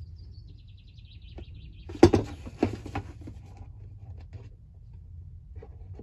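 A loud clack about two seconds in, then a few lighter knocks and taps as parts of a petrol hedge trimmer are handled. It is preceded by a faint high chirping.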